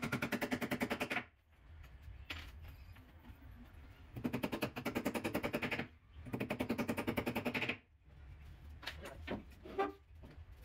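Power drill-driver driving screws into a wooden support batten in a plywood bed box: three bursts of rapid, even rattling, each a second or two long, with a few light knocks near the end.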